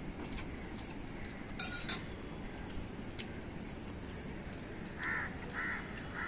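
Faint clicks and rustles of hands tearing parotta on banana leaves, then a crow cawing three times, short and evenly spaced, about five seconds in.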